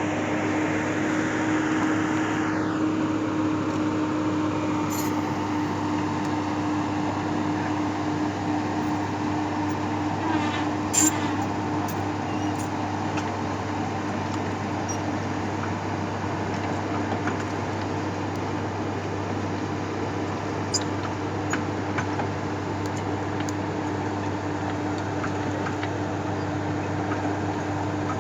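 Hitachi excavator's diesel engine running steadily with a constant low hum. There is a short falling whine about two to three seconds in and a few sharp clicks or knocks, the loudest about eleven seconds in.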